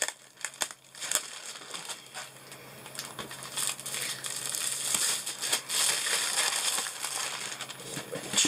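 Clear plastic packaging crinkling and rustling as a rolled diamond-painting canvas is handled in and out of its bag. A few sharp crackles come in the first second, then denser rustling from about four seconds in.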